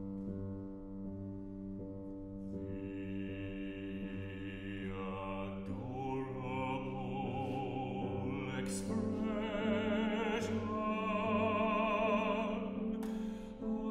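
Baritone singing a classical art song over piano accompaniment, with wide vibrato on held notes. The voice grows louder in the second half.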